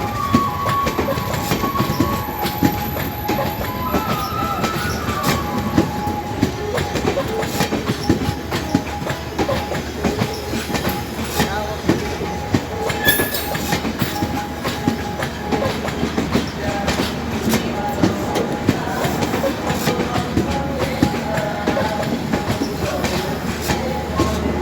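Indian Railways express train rolling past, its coach wheels clattering in a dense, irregular run of clicks over the rail joints, with a thin wheel squeal on top, higher near the start.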